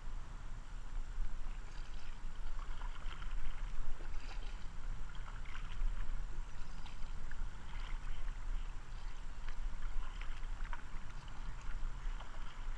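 Kayak paddle strokes: water splashing and dripping as the blades dip in and lift out, in many small irregular splashes over a steady low rumble.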